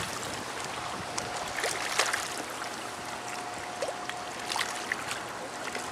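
Steady rush of flowing water, with a few faint clicks and knocks and a thin steady tone through the middle.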